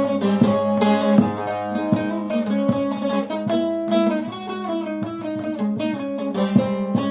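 Long-neck bağlama (uzun sap saz) improvising a melody of quick plucked notes over a steady ringing drone.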